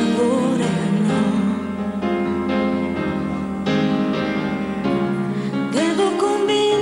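Slow Italian pop ballad, mostly an instrumental passage of held chords with a plucked guitar, and a woman's singing voice coming in near the end.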